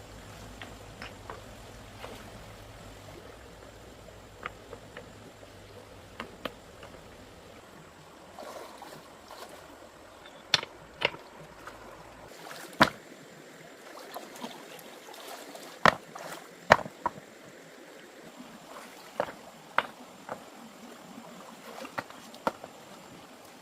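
Faint running water with scattered, irregular sharp clicks and knocks, and a low hum that stops about halfway through.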